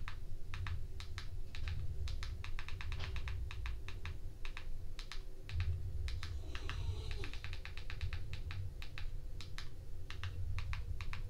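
Plastic button clicks of a TV remote pressed over and over to step a cursor across an on-screen keyboard, several clicks a second in uneven runs, over a low steady hum.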